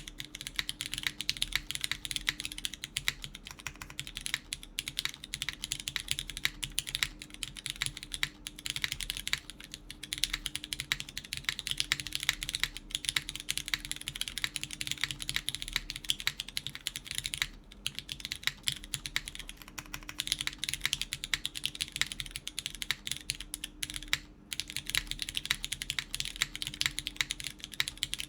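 Continuous fast typing on a gasket-mounted mechanical keyboard with lubed Cherry MX Brown tactile switches on an FR4 plate under GMK keycaps: a dense stream of keystroke clacks, broken by two brief pauses about 17 and 24 seconds in.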